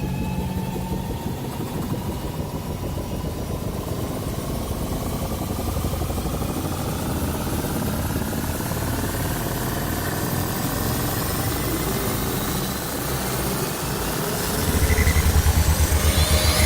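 A vehicle engine running, its pitch climbing slowly and steadily as it speeds up. Near the end a louder low, rapid throbbing sets in.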